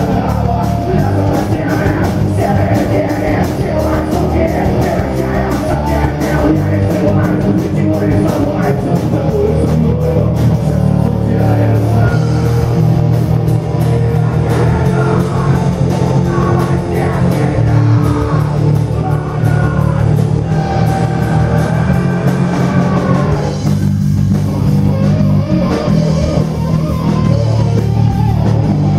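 Live rock band playing loud, with electric guitars over a full drum kit.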